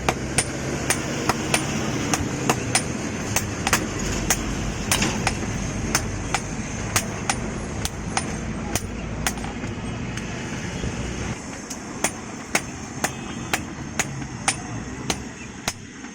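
Blacksmith's hammer striking metal on an anvil at a steady pace, about two blows a second, each with a short metallic ring. A steady low rumble sits underneath and drops away about eleven seconds in.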